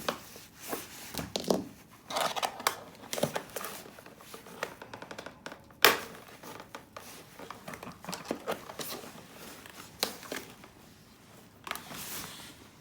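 Handling noises from hands working on vacuum cleaner parts during a repair: irregular clicks, scrapes and rustling, with one sharp click about six seconds in.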